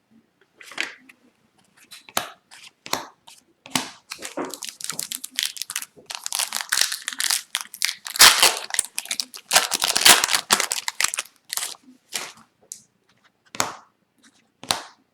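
Trading card packaging crinkling and rustling as hockey cards are handled, with scattered short clicks and slides. The crinkling is dense and loudest from about four to eleven seconds in.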